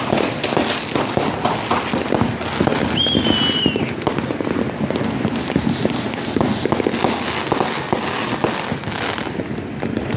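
Fireworks going off: a dense, continuous crackle of sharp pops from spark fountains and aerial bursts, with one firework whistling briefly, falling slightly in pitch, about three seconds in.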